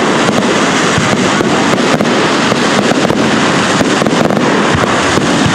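Fireworks going off: a dense, continuous crackle of many rapid small pops over a steady hiss.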